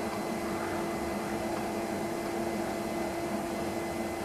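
A steady mechanical hum with a constant low tone under an even whir.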